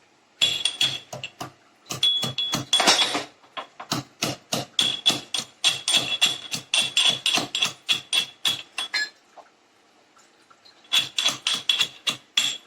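Fresh ginger being pounded with a pestle: runs of quick, sharp strikes, about three or four a second, each with a bright ring, broken by a pause of about two seconds near the end.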